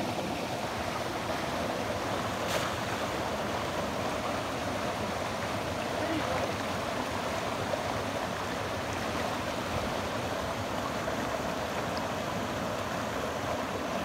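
Mountain stream rushing over rocks: a steady, even rush of water. A single faint click about two and a half seconds in.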